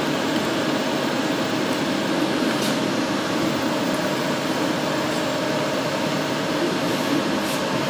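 Large-format UD-3206H inkjet printer running as it prints a banner: a steady mechanical whirr from the print-head carriage moving back and forth. A faint tick comes about a third of the way in and again near the end.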